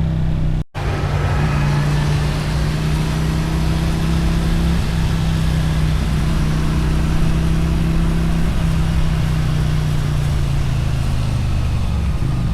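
Motorcycle engine and exhaust running at a steady cruising throttle, with wind and road noise around it. The note shifts slightly about five seconds in and again about eight and a half seconds in. The sound cuts out for a moment under a second in.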